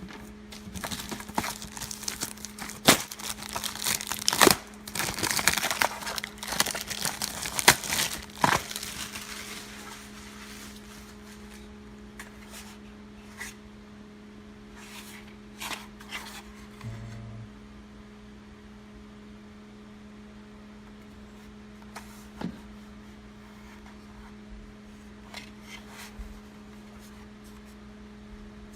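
Packaging crinkling and tearing while being unboxed by hand, with sharp clicks and knocks of handling. The crinkling dies away after about nine seconds, leaving a few scattered clicks over a steady low hum.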